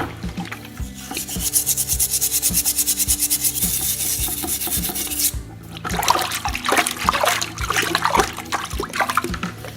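Hand scrubbing or sanding on a metal hammer head: fast, even back-and-forth strokes for about four seconds that stop abruptly. After a short pause, irregular scraping and clicks follow.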